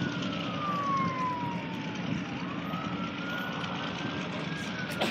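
A siren wailing, its pitch sliding slowly down and back up about every four and a half seconds, over the steady low drone of the Corsair's radial engine as it rolls out for takeoff.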